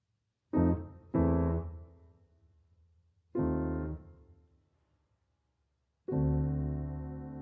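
Piano music: single chords struck with pauses between, two close together near the start, another a little past three seconds, and a last one about six seconds in that is held and rings on.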